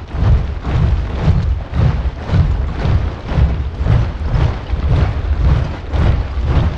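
A large body of soldiers marching in step: many feet striking the ground together in a steady rhythm of heavy thuds, about two steps a second.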